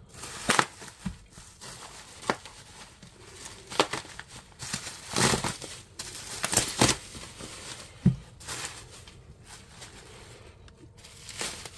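Plastic bubble wrap crinkling and rustling as it is pulled, torn and bunched by hand, in irregular bursts. There is a soft low thump about eight seconds in.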